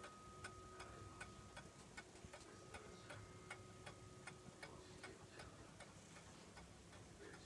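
Wooden mantel clock ticking faintly and evenly, about three ticks a second.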